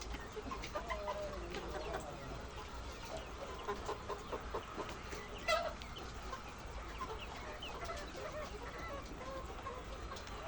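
A flock of egg-laying hens clucking, many short scattered calls overlapping, with one louder call about halfway through.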